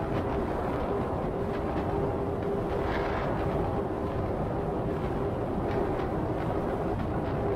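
Steady road noise of a car at highway speed: tyre rumble and wind with a constant low hum, a few faint knocks, and a brief hiss about three seconds in.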